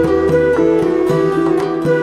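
Instrumental background music: a quick melody on plucked strings over held bass notes.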